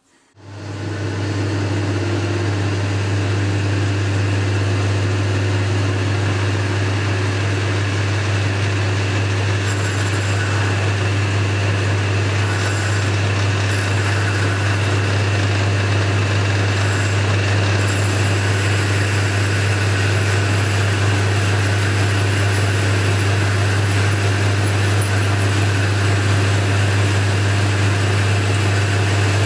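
Boxford lathe switching on about half a second in, then running steadily with a strong low hum while a carbide-insert tool turns an 8 mm steel offcut down to 6 mm.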